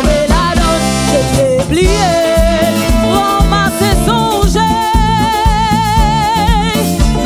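Live Haitian roots band playing: a woman sings over electric guitar, bass, hand drums, drum kit and horns, with a steady beat. In the second half a single note is held for a couple of seconds with a wide vibrato.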